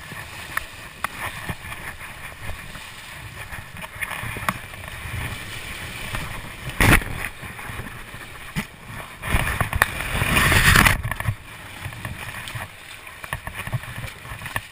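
River water rushing and splashing close to the microphone during a motorcycle river crossing. There is a sharp knock about halfway through, then a louder rush of splashing lasting about two seconds.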